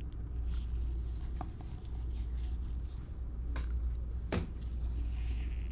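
Trading cards handled by gloved hands, sliding off a stack: faint scratchy sliding with a few light clicks, over a steady low hum.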